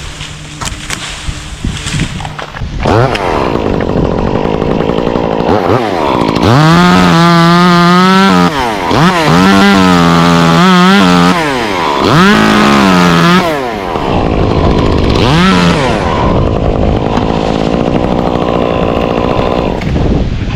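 Stihl two-stroke chainsaw cutting oak. It runs low for the first couple of seconds, revs up about three seconds in, then runs at full throttle with its pitch sagging and recovering several times as the chain bites into the wood, and settles into a steady full-throttle cut near the end.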